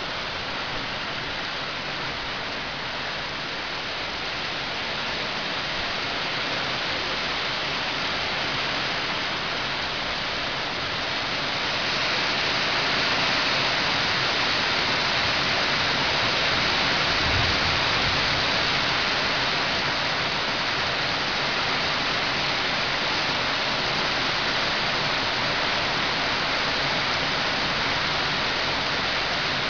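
Heavy rain pouring down steadily, growing heavier about twelve seconds in.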